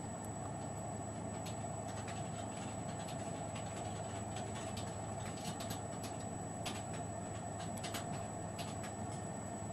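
Light clicks of a plastic stylus tapping on a PDA's touchscreen, scattered and irregular, over a steady hum and hiss.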